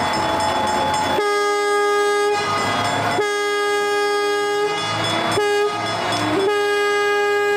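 East Broadtop narrow gauge locomotive whistle blowing two long blasts, a short one and a long one, the standard grade-crossing signal. A steady rushing noise of the running train comes before the first blast.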